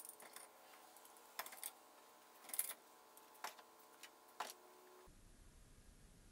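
Homemade steel bar clamps clicking and knocking against each other and a wooden wall rack as they are hung up, a handful of separate sharp knocks with the loudest about two and a half seconds in. The knocks stop about five seconds in, leaving faint room tone.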